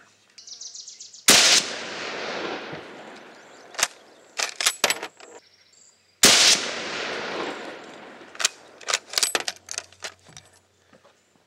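Two shots from a Chinese Mauser bolt-action rifle in 8mm Mauser, about five seconds apart, each followed by an echo that dies away over a second and a half. Clusters of short sharp metallic clicks follow each shot as the bolt is worked.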